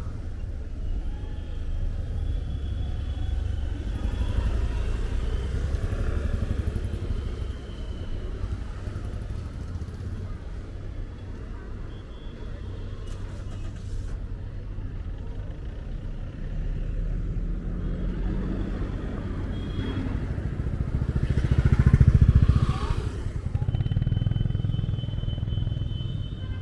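City street traffic with motorcycles and cars running past under a steady low rumble, with faint voices of people in the background. Near the end one vehicle passes close, swelling up and fading away.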